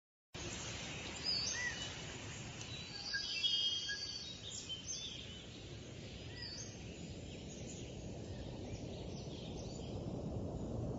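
Outdoor field-recording ambience that cuts in abruptly: scattered short bird chirps, busiest in the first half, over a steady low rumbling noise that grows slightly louder near the end.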